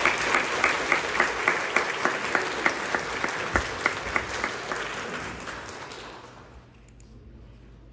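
A congregation applauding, with one clapper close by standing out at about three claps a second. The applause dies away over the last few seconds.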